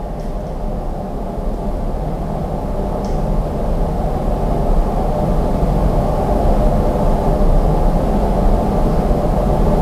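A steady low rumbling drone that grows slowly louder.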